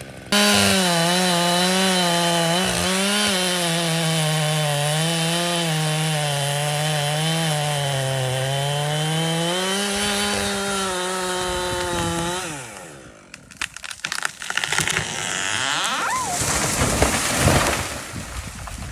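Two-stroke chainsaw running at high revs while cutting into an ash tree, its pitch dipping and recovering as the chain bogs in the wood. About twelve seconds in, the engine note drops away and irregular cracking and crashing noise follows.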